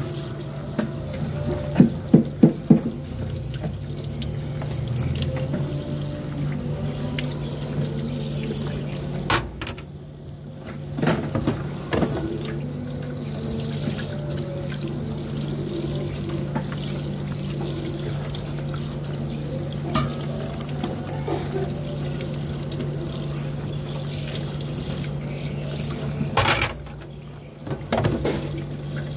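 Tap water running into a stainless steel sink while plates are scrubbed by hand under the stream, with a steady low hum beneath. There are several sharp clinks of dishes about two seconds in and a few more later, and the water sound briefly drops twice.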